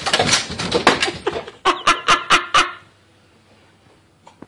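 A dog forcing a stick through a plastic pet-door flap: a dense stretch of rattling and knocking, then a quick run of about five short, sharp bursts a little under two seconds in, before it goes quiet.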